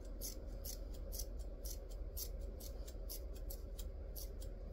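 Scissors snipping through yarn strands while trimming a pom-pom into shape: short, even snips at about four a second.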